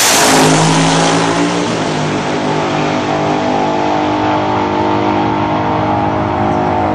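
Drag car running at full throttle as it accelerates away down the quarter-mile strip after its launch. The engine note steps about two seconds in as it shifts gear.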